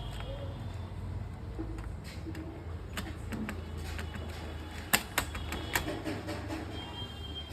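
A few light clicks and knocks from parts being handled and fitted back together while reassembling an electronic keyboard, the sharpest about five seconds in, over a steady low hum.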